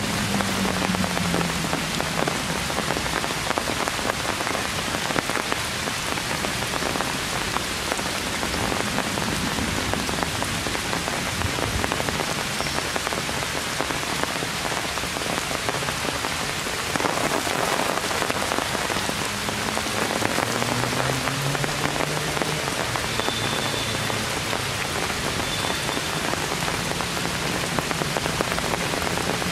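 Heavy rain falling steadily on forest foliage, an even hiss of drops on wet leaves.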